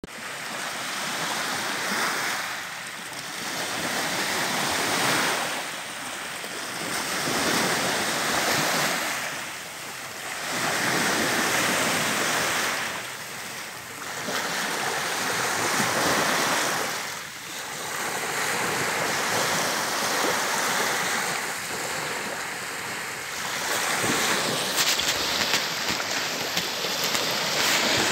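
Black Sea waves washing onto the shore: a rush of surf that swells and fades about every three to four seconds.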